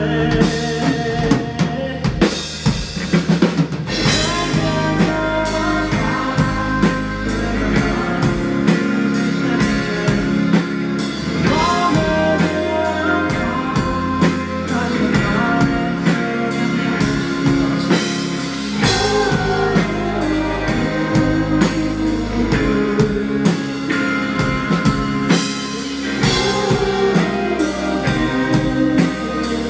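Live rock band playing, with the drum kit keeping a steady, busy beat on snare and bass drum under sustained instruments, and a singer's voice in places.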